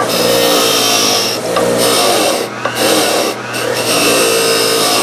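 A bench grinder's steel wire wheel rasping against an aluminum casting sprue, with a few brief breaks, over the steady hum of the grinder motor. The wheel is scrubbing off the casting's rough frosted skin, which the speaker thinks is aluminum oxide.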